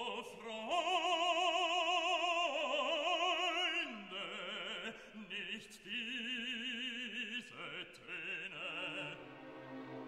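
Background music: an operatic voice singing long held notes with a wide vibrato.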